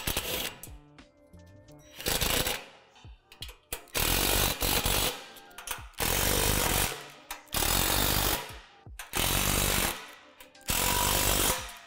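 Cordless power driver running bolts into a steel playset frame, in about six short runs of roughly a second each with pauses between.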